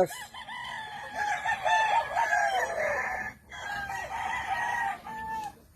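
Several gamefowl roosters crowing, their crows overlapping, with hens clucking among them.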